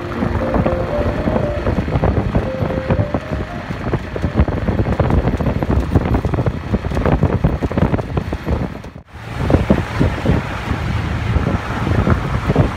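Wind buffeting the microphone in irregular gusts, with background music fading out over the first few seconds. The sound drops out briefly about nine seconds in, then the buffeting resumes.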